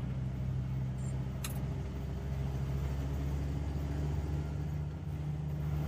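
Car engine running steadily, a low hum whose pitch edges up slightly past the middle, with one faint click about a second and a half in.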